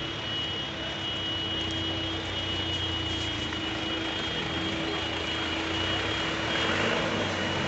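Vehicle engines running steadily in floodwater, with a constant hum. A box truck passes close by near the end, pushing through the water, and the noise swells slightly.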